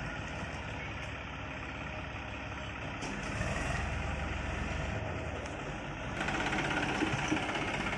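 Eicher 380 tractor's diesel engine running steadily at low revs, getting louder from about six seconds in.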